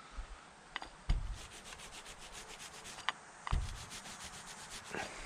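Paint roller with a 15 mil nap sleeve rolling wet paint across a garage door, a steady rubbing with a few light knocks.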